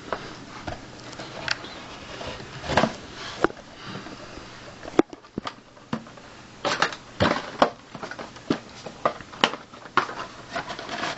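Cardboard and plastic packaging of a boxed AMD FX CPU being handled and opened, with irregular crackles and sharp clicks.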